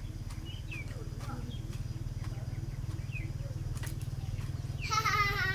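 A few faint chirps over a steady low hum, then near the end a loud, wavering call from a farm animal begins.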